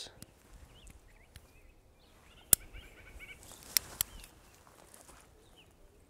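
Small birds chirping faintly, in short scattered calls, with a few sharp clicks: one about two and a half seconds in and two close together near four seconds in.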